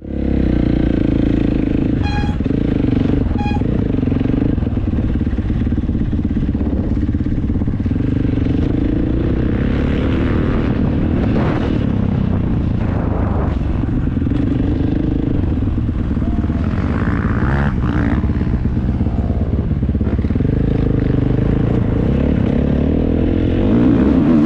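Husqvarna motocross bike engine heard on-board, running hard through a lap, its note rising and falling as the throttle is worked, with wind and track noise over it.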